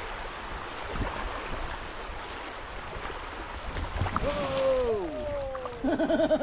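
Creek water running steadily, with a single knock about a second in. About four seconds in, a man's drawn-out exclamation slides down in pitch, followed near the end by a wavering vocal sound.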